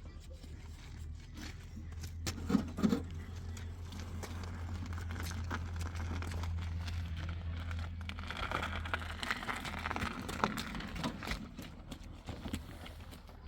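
Knocks and scraping of concrete-block work, with two loud knocks a little over two seconds in and rasping noise with scattered clicks later, over a steady low hum that fades out about two-thirds of the way through.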